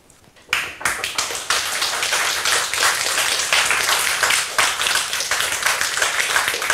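Audience applauding, beginning suddenly about half a second in as many hands clapping at once.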